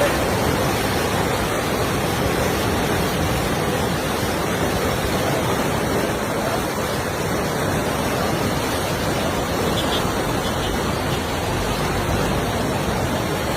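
Fast-flowing flash-flood water rushing, a steady unbroken rush.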